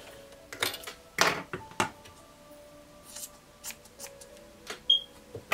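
Scissors trimming thread and cotton quilting fabric being handled after a seam at the sewing machine: a series of short, sharp snips and rustles, over soft background music.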